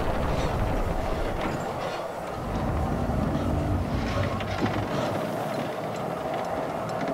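Cable-tool drilling rig machinery running at a wooden derrick: a steady mechanical clatter with scattered clanks and knocks.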